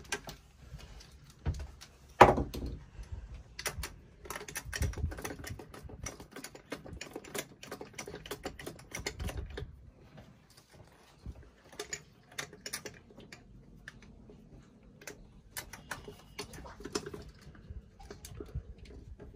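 Hand ratchet with a 10 mm socket clicking in quick runs as it backs off the nuts holding a fuse box, mixed with light clatter of plastic and metal parts being handled. One loud knock about two seconds in.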